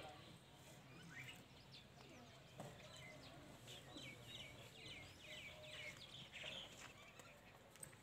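Faint, near-quiet farmyard with a bird chirping in the background: a quick run of short, high, repeated calls from about three seconds in until near the end.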